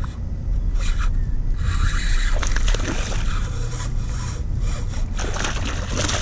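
A fishing reel being cranked in a slow retrieve, a rasping whir that comes in spells over a steady low rumble. Near the end a hooked largemouth bass splashes at the surface.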